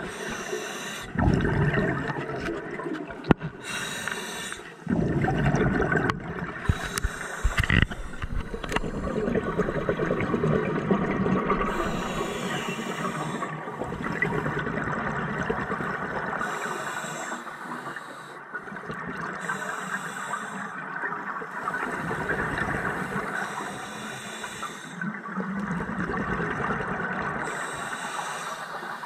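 Scuba divers breathing through regulators underwater: short hissing inhalations alternate with rushes of exhaled bubbles, about one breath every few seconds.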